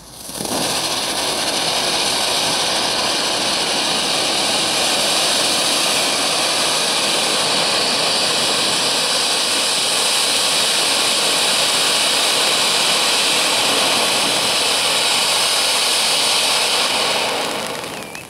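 Three ground fountain fireworks spraying sparks with a loud, steady hiss that starts suddenly and dies away near the end as they burn out.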